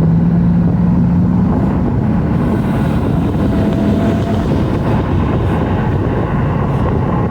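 Ford Mustang GT's V8 engine running as the car drives along, with road and wind noise. There is a steady low engine drone that shifts slightly in pitch about two seconds in.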